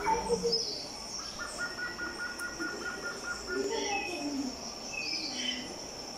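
Insects keep up a steady high whine while birds chirp. Early on there is a run of quick, even chirps, about four a second, and short scattered calls follow.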